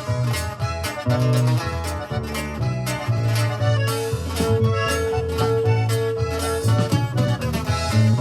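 A band playing an instrumental break of a Latin-style love song, with no singing. A bass line pulses steadily under the band, and one note is held for a couple of seconds in the middle.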